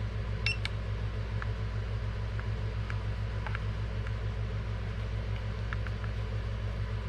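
Steady low hum with scattered faint clicks from handling a car key remote and pressing its buttons.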